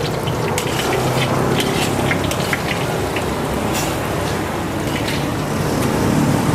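Hot oil sizzling in a wok as an egg deep-fries crispy, with scattered small crackles and pops of spattering oil. A steady low hum runs underneath.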